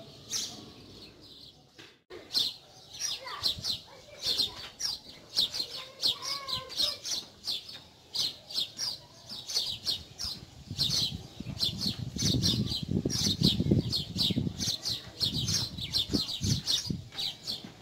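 Small birds chirping over and over, two or three short chirps a second. From about halfway, low shuffling footsteps on a dirt lane come in under the chirping and grow louder.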